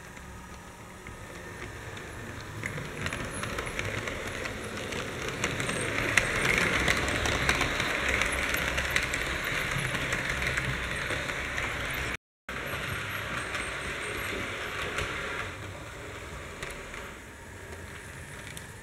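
Model trains running on the layout's track: a steady whirring rattle of small motors and wheels on the rails, with fine clicks. It grows louder to a peak as a train passes close, breaks off for a moment about twelve seconds in, then carries on more quietly.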